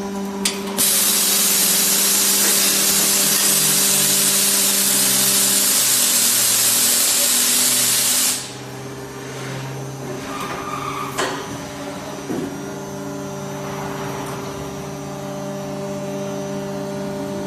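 Die casting machine at work: a steady machine hum with a loud spraying hiss that starts about a second in, lasts about seven seconds and cuts off suddenly, followed by a few sharp clicks and knocks.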